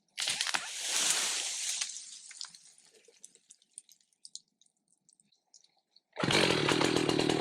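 A two-stroke chainsaw cuts in suddenly about six seconds in and runs at high speed. Before it, a brief rush of rustling noise fades out over about two seconds, followed by a few faint clicks.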